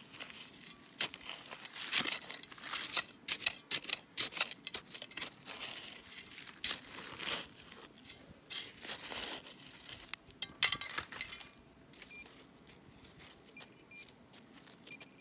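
A hand digging trowel scrapes and chops into gritty soil and root-laced leaf litter in many quick strokes. In the last few seconds a handheld metal-detecting pinpointer, probed into the hole, gives short high beeps, the sign that the metal target is in the loosened soil.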